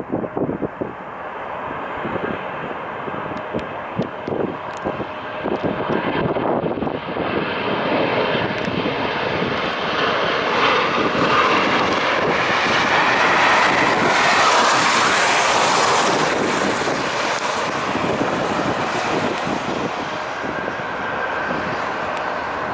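Boeing 737 airliner's jet engines on landing approach, growing steadily louder to a peak a little past the middle as the aircraft passes low, then easing off. Wind gusts hit the microphone in the first few seconds.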